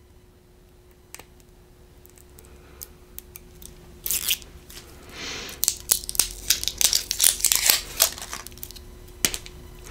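Product packaging torn open and crinkled by hand, starting about four seconds in as a quick run of sharp tearing and crinkling crackles that lasts some five seconds.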